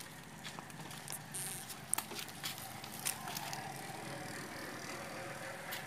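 Faint scattered clicks and small rattles from a motorcycle being handled, over a low steady hum.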